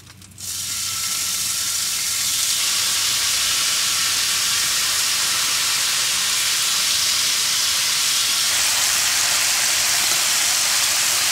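Marinated bulgogi beef sizzling loudly in a hot pan. The sizzle starts suddenly about half a second in, as the meat goes into the pan, swells over the next second or two and then holds steady.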